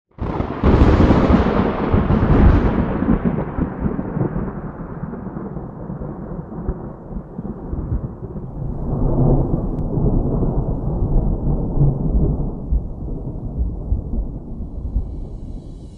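Thunder: a sudden loud crack that rolls on as a long, fading rumble, swelling once more partway through before dying down.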